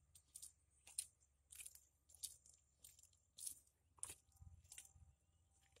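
Faint, irregular crunches and clicks, about two a second, of caked mud and grit on an amphibious excavator's steel track being handled and stepped on while the track chain is checked.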